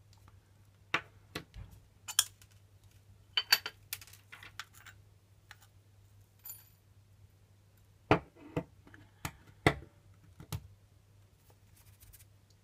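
Parts of a Porlex Mini hand coffee grinder being taken apart and handled: irregular sharp clicks and knocks of its stainless steel body and ceramic burr pieces against each other and the table, in two bunches with a pause between.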